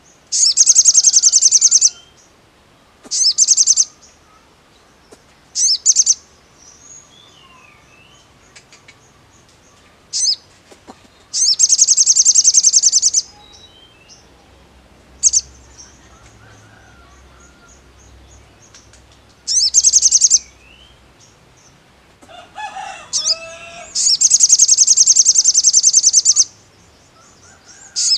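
A male sunbird (sogon) singing in bursts of loud, very rapid high-pitched trills, each from a fraction of a second to about two seconds long, with soft chirps between them. About three-quarters of the way through, a lower, rougher chirping is heard briefly.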